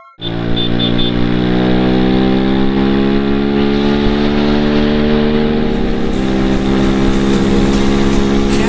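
Motorcycle engine and exhaust pulling hard at highway speed, the engine note climbing slowly for about six seconds and then holding steady, with wind rush over it.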